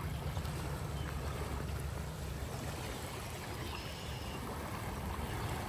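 Steady rushing wash of a fast-flowing river running high after flooding, heaviest in a low rumble.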